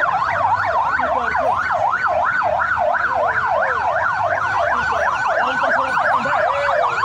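Several sirens yelping at once, their pitches sweeping quickly up and down a few times a second and overlapping.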